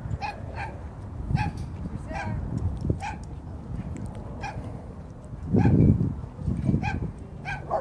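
A dog giving short, high-pitched whimpering yips, about ten of them spaced irregularly, with a louder low rumble of noise about two-thirds of the way through.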